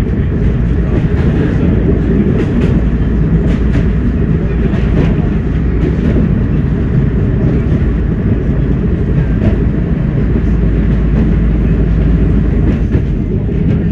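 A Class 104 diesel multiple unit under way, heard from the driving cab: the steady drone of its underfloor diesel engines and running gear, with the wheels clicking over the track now and then.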